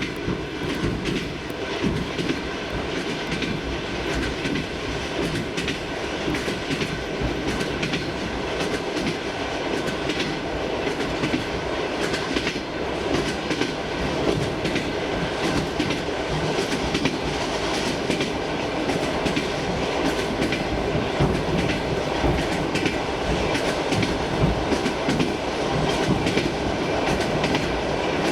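Moving suburban electric train heard from inside the carriage: a steady running rumble with the clickety-clack of the wheels over rail joints, growing slightly louder toward the end.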